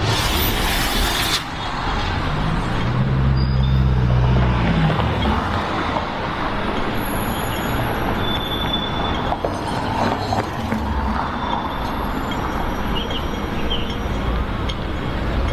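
Steady road traffic at a city street junction. A short burst of hiss comes right at the start, and a vehicle engine drones low, rising and then falling away, about three seconds in.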